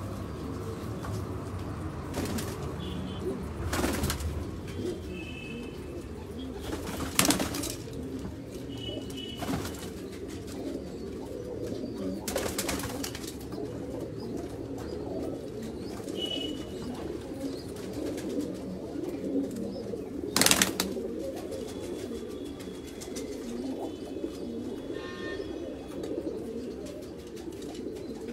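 A flock of white domestic pigeons cooing continuously, many voices overlapping into a steady low warble. A few sharp claps cut through it, the loudest about two-thirds of the way in.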